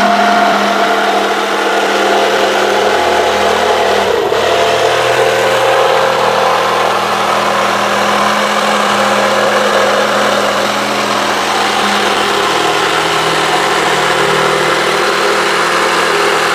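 Xenon CDJS1845 18 V cordless jigsaw running steadily at full speed while cutting a curve through 12 mm plywood, its pendulum (orbital) action off.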